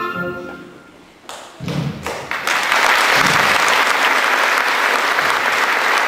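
The orchestra's last notes fade, then an audience starts clapping: a few scattered claps about a second in, swelling into full, steady applause from about two and a half seconds on.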